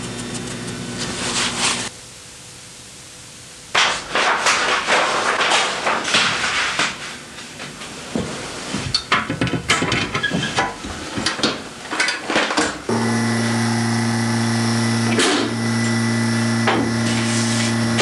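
Irregular knocking, tapping and scraping of hands and tools handling an inked printing plate and its frame. About thirteen seconds in, a steady electric motor hum starts and runs on.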